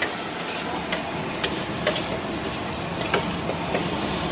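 Metal spatula knocking and scraping in a large wok of fried rice being stirred, a sharp clink every half second to a second, over a steady hiss.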